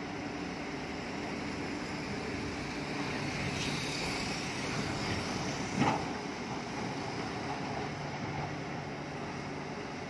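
Heavy earthmoving machinery running steadily at work, with a high squeal for a few seconds in the middle and one sharp clank about six seconds in.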